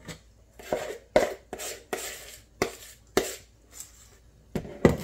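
Spoon scraping and knocking against a mixing bowl as leftover cake mixture is cleared out: about ten short, uneven strokes, some drawn out into scrapes, with the loudest knocks near the end.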